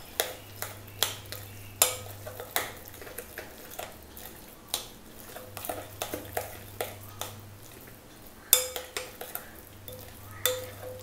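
Metal spoon stirring thick moong dal bonda batter in a glass bowl, with irregular clicks and scrapes of the spoon against the glass, about one or two a second.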